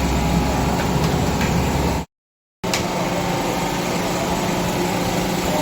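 Steady, dense engine-like background noise, cut off abruptly for about half a second roughly two seconds in, then resuming.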